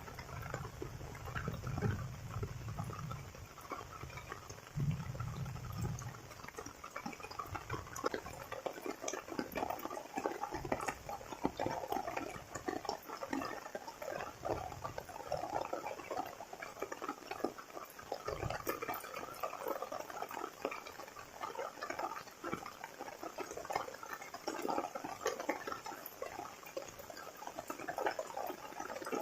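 Heavy rain falling steadily, a dense spread of drops hitting surfaces. A low rumble sits under it for the first few seconds.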